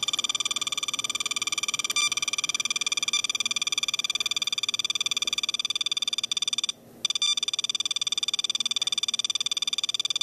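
SOEKS Ecotester radiation dosimeter sounding its dangerous-radiation alarm: a high electronic tone pulsing rapidly, with one short break about seven seconds in. The alarm is set off by the uranium glaze of a vintage China Red Fiesta Ware bowl, which reads 40 to 65 microsieverts per hour.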